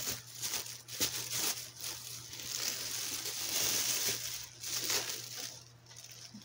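Thin plastic shopping bag crinkling and rustling as it is handled close to the microphone, an irregular crackle that dies down near the end.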